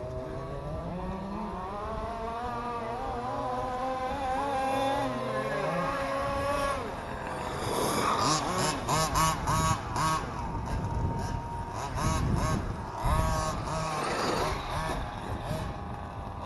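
Large-scale RC cars running, their motors revving up and down in pitch, with a run of quick repeated revs from about halfway through.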